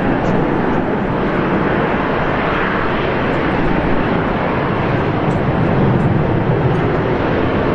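Jet airliner engines running: a steady, even noise with no distinct tones.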